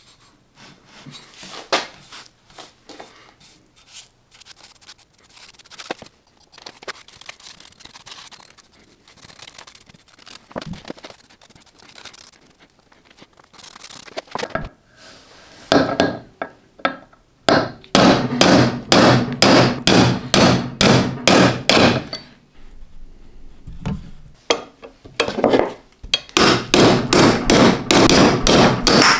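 Hand-tool work on workshop parts: scattered light knocks and clinks, then two long runs of rapid, evenly repeated strokes, about three or four a second, in the second half.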